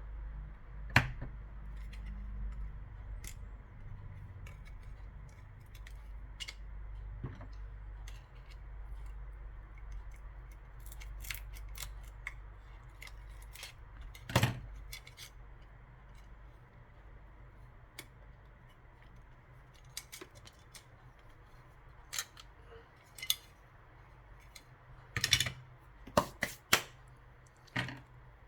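Small sharp clicks and taps of a flip phone's plastic parts and small tools being handled, irregular and scattered, with a few louder clicks midway and a quick cluster near the end, over a low steady hum.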